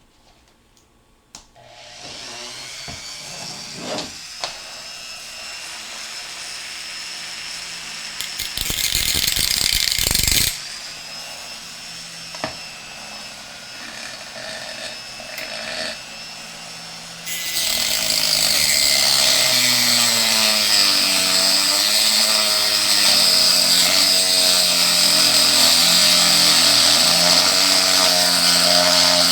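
Corded rotary tool with a reinforced cutoff wheel, set to 15,000 RPM, starting up about two seconds in with a steady high whine, then cutting through bolts held in pliers. A louder burst of grinding comes around ten seconds in, and from just past halfway the grinding turns louder and continuous, its pitch wavering as the wheel bites into the bolt.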